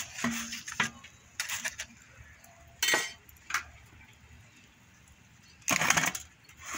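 Metal cookware being handled: a spatula and foil baking trays clinking and scraping on a metal tray in a few separate knocks, with a louder half-second scrape near the end.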